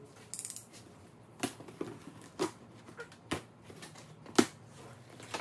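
Box cutter slitting packing tape on a cardboard box: a short rasp of tape being cut about half a second in, then a series of sharp clicks and knocks against the cardboard.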